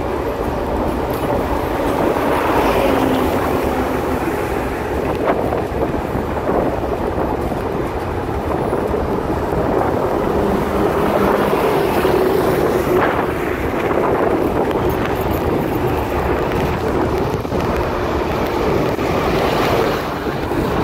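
Steady rush of a moving passenger train with wind buffeting the microphone, and a few faint clicks.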